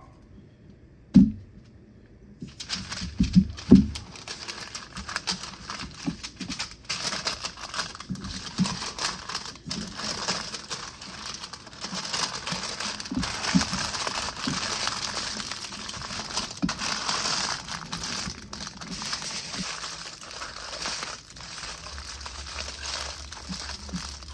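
Parchment paper and aluminium foil crinkling and crumpling as sweet potatoes are wrapped by hand, with a few sharp knocks in the first few seconds.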